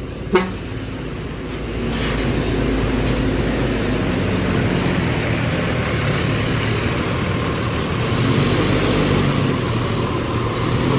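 Bus engine running as the bus pulls away, under a steady rumble of traffic. A short sharp chirp comes about half a second in.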